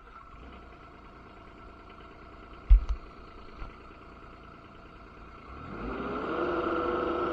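Diesel engine of a Kubota SCL1000 stand-on skid steer running at low speed, with one loud clunk about two and a half seconds in. Near the end it is throttled up: the pitch rises and settles at a steady higher speed.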